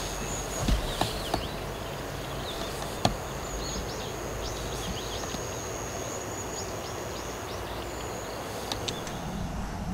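Outdoor ambience at the water's edge: a steady high-pitched insect trill, with scattered short falling chirps over it. Several sharp clicks come through: three in the first second and a half, one about three seconds in, and two close together near the end.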